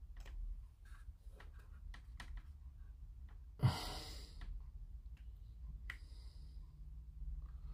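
Faint scattered clicks and taps of hands handling and pressing parts on a plastic model kit, with one loud, short breath of air about halfway through.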